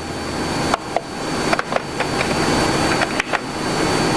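Canon MF284DW laser multifunction printer running a copy job. A steady mechanical whir grows louder, with a faint high whine and about four sharp clicks.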